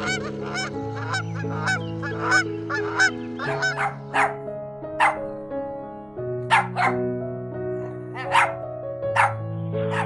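Waterfowl honking about twice a second for the first three seconds or so, then a dog barking in single and paired barks, all over background music of slow held chords.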